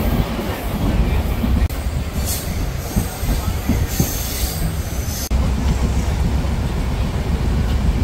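Passenger train running, heard from inside the coach at an open window: a loud, steady rumble of the wheels on the track, with two short high-pitched squeals about two and four seconds in.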